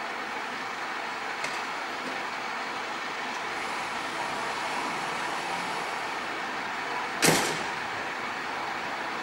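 Steady city-street traffic noise, with a single sharp loud thump about seven seconds in that dies away quickly.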